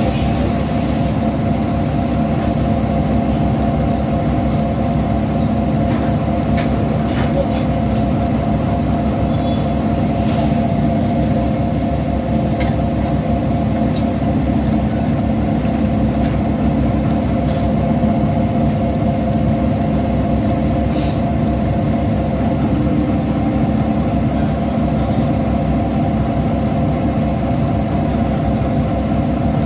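2010 Nova Bus LFS articulated city bus running with a steady engine drone and a few light clicks and rattles.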